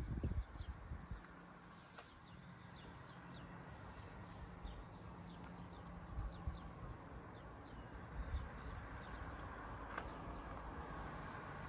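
Small birds chirping over a low steady hum and rumble of outdoor background noise.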